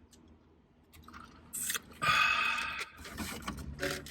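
Close-up chewing of fast food. About two seconds in, a louder sound lasts about a second.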